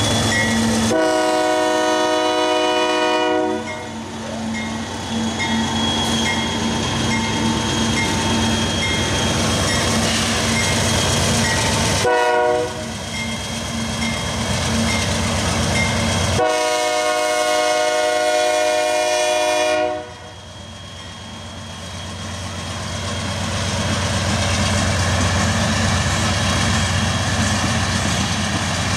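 Union Pacific diesel locomotive's air horn sounding a long blast, a short one and another long one, the crossing signal for a road grade crossing. Under it runs the steady rumble of the locomotives and freight cars rolling past.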